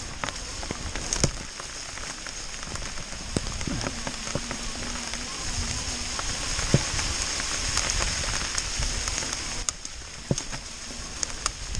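Steady rain mixed with hail, a continuous hiss with scattered sharp ticks of drops and pellets striking close by.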